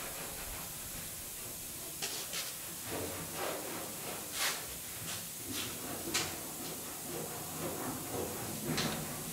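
A rag wiping and rubbing over the painted sheet metal of a truck cab, with a handful of short, sharp scuffs spread through, over a steady hiss.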